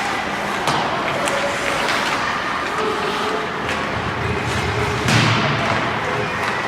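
Ice hockey game in an echoing rink: scattered sharp clacks and thuds of sticks, puck and boards over a steady din from the ice and the stands, with the loudest knock about five seconds in.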